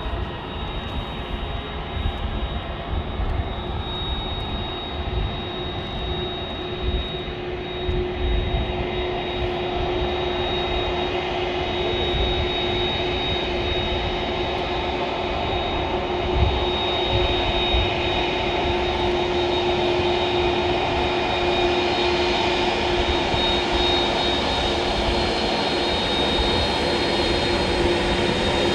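Twin jet engines of an Airbus A320 airliner running, a steady high whine over a lower hum, growing gradually louder as the aircraft rolls closer. Gusty rumble of wind on the microphone underneath.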